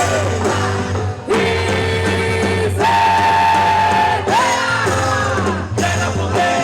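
Festa junina quadrilha music: a song with a voice holding long notes, several sliding down at their ends, over the band.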